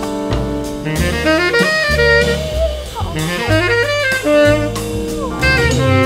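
Saxophone soloing with a jazz band, playing quick melodic runs that slide between notes, over bass and a drum kit.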